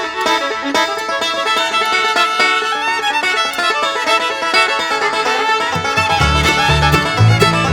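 Background bluegrass-style music with fiddle over plucked strings; a bass line comes in about six seconds in.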